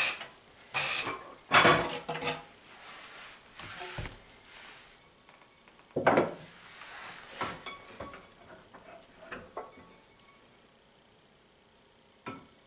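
Irregular knocks, clinks and clatters of objects being moved about in a kitchen under-sink cabinet, thinning out to a quiet stretch with one last click near the end.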